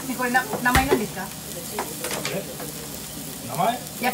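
Okonomiyaki frying on a flat iron teppan griddle, a steady sizzling hiss. A single sharp knock sounds just under a second in, and voices come and go in the background.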